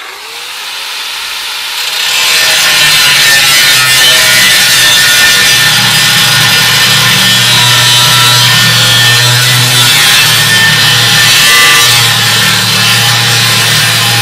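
Corded angle grinder starting up with a rising whine, then cutting a vent slot into the steel wall of a half 55-gallon drum: a steady, loud grinding from about two seconds in.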